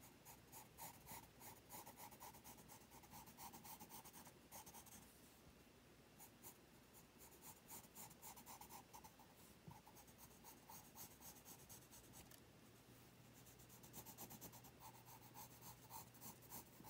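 Pencil scratching on paper in quick sketching strokes, faint, in runs broken by short pauses.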